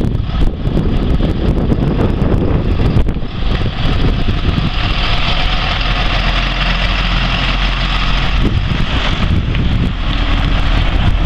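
International 4700 box truck's diesel engine running as the truck drives slowly past at close range.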